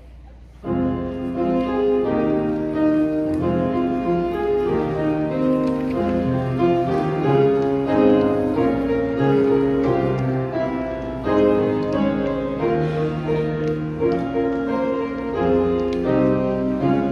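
Upright piano playing a hymn tune in chords, starting about a second in.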